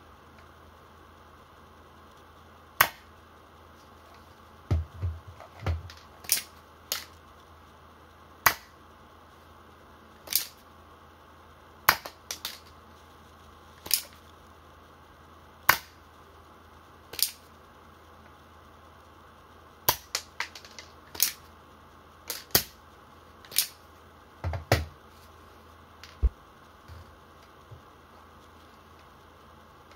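Tokyo Marui SAA.45 gas airsoft revolver firing through a chronograph: a series of sharp shots about every one and a half to two seconds, with lighter clicks between them and a few dull handling knocks.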